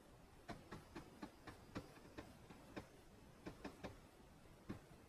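Computer keyboard keys pressed one at a time: a dozen or so sharp, separate clicks at an uneven pace, some in quick runs of two or three.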